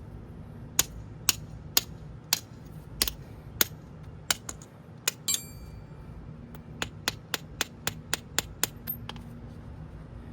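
A string of sharp metallic clicks and taps, about two a second and quicker near the end, from metal hand tools and hardware being handled during a wheel and tire change. About five seconds in, one clink rings briefly.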